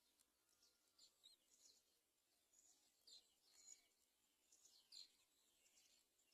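Faint, short, high-pitched bird chirps, repeated irregularly; several fall in pitch.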